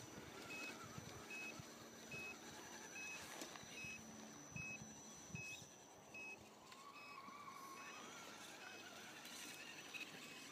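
Faint electronic beeping: short high beeps repeating at an even pace, a little more than once a second, over a faint background of rustle and small knocks.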